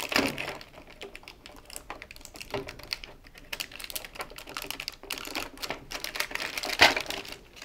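Plastic retaining clips on a washing machine's control panel clicking and creaking as the circuit board is prised free by hand. The clicks come in an irregular run, with a louder one near the end.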